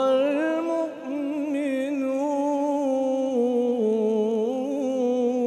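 A male reciter chanting the Quran in melodic tajwid style, holding long ornamented notes with a gentle wavering. There is a short break about a second in, then the held note continues.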